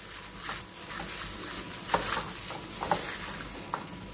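Gloved hand squeezing and mixing sliced raw pork in a wet egg and oyster-sauce marinade in a ceramic bowl: irregular wet squelches and squishes.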